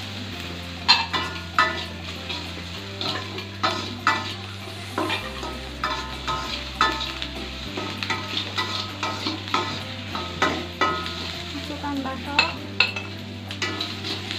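Pizza topping of chopped onion and meat pieces stir-frying in a metal wok: a steady sizzle, with the cooking utensils knocking and scraping against the pan at irregular moments throughout.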